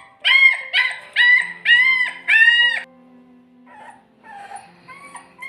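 Puppy crying: five loud, high-pitched cries in quick succession, each rising and falling, then fainter whimpers near the end.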